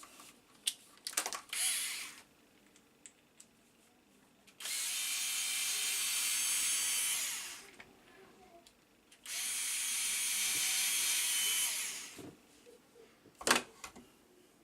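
Power drill running in two steady bursts of about three seconds each, taking a part off. Light clicks of handling come before and between them, with one sharp knock near the end.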